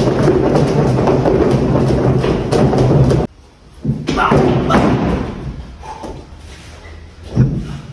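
Heavy battle ropes slapping the floor in rapid waves, which stop abruptly about three seconds in. A few single rope thuds follow, the last near the end.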